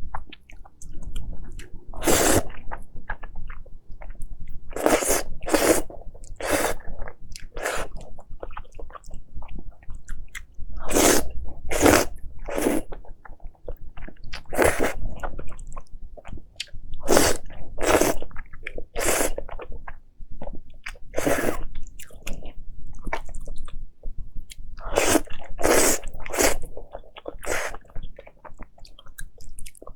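Close-miked eating with no talking: short, loud mouth sounds of biting into food every one to three seconds, with quieter chewing between them.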